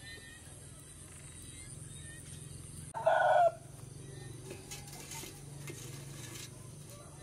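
A chicken gives one short, loud cry about three seconds in, over a steady low hum.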